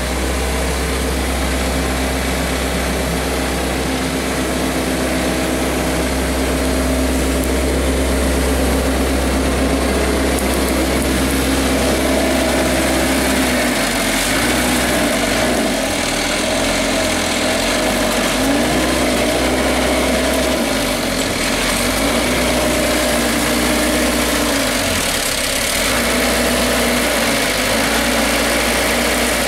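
Daewoo Solar 50W wheeled excavator's diesel engine running, steady in pitch for the first half, then wavering up and down in speed through the second half as the machine works.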